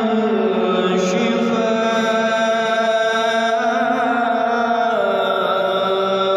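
A voice singing long, held notes in a chant-like style, sliding slowly between pitches with barely a break: vocal practice, pushing the voice.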